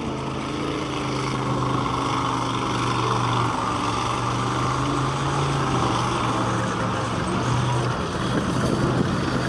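Stuart light tank driving past, its engine running steadily under a rough clatter from the tracks.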